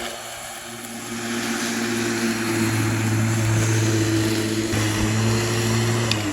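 Lawn mower running steadily. Right at the end its pitch and level fall as it winds down.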